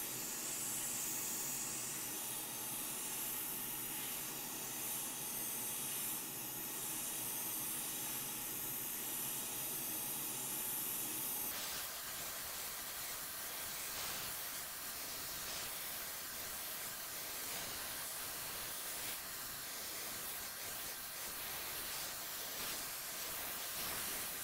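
Hot air rework station blowing a steady hiss over the board, heating the solder under an SD card connector to lift it off. The hiss changes abruptly about halfway through.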